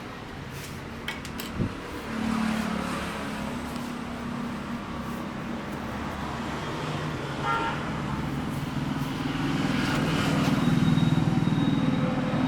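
Street traffic: motor vehicle engines running and passing, swelling louder near the end, with a brief horn toot about seven and a half seconds in. A couple of sharp clicks sound early on.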